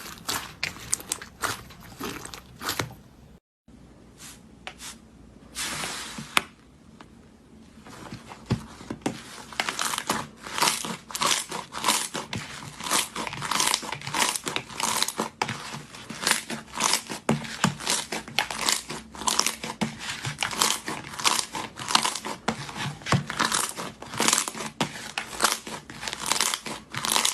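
Slime being squeezed, poked and stretched by hand, giving a dense stream of sticky crackles and pops. The sound cuts out briefly about three and a half seconds in and is sparser until about eight seconds, then the popping comes thick and fast.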